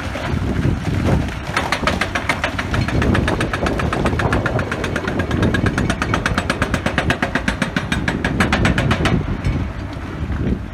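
Excavator-mounted hydraulic rock breaker hammering hard rock in a rapid, steady train of blows that starts about a second and a half in and stops near the end, with the excavator's diesel engine running underneath.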